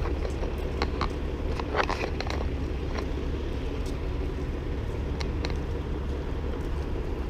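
Steady low rumble of outdoor background noise, with a few short clicks and taps scattered through it, a small cluster of them about two seconds in.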